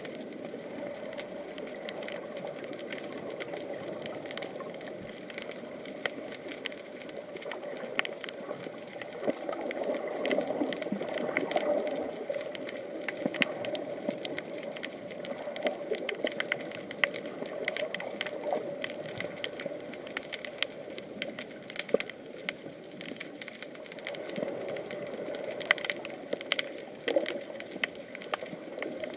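Underwater sea ambience: a steady, muffled wash of water noise with a scatter of fine crackles and clicks throughout, a few sharper clicks near the end.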